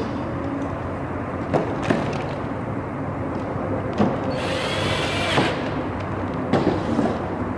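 Power drill briefly driving a round-top screw into an aluminium door frame: one motor whine of about a second, rising and then holding, about halfway through. A few light clicks of handling before and after.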